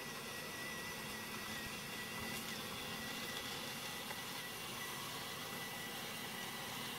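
VEXplorer robot's small electric drive motors whirring steadily, with a thin, slightly wavering high whine over a constant hiss.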